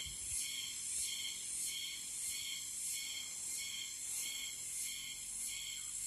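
Insects calling in a steady high-pitched chorus that pulses about three times every two seconds.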